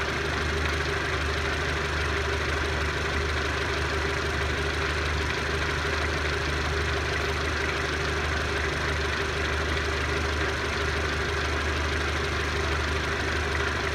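A steady, unchanging mechanical hum, a motor or engine running continuously at a constant speed.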